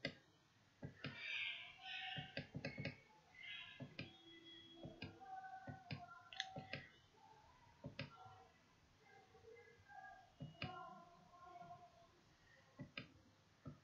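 Faint, irregular computer mouse clicks, a rapid scatter of them, from clicking the down arrow to scroll a document.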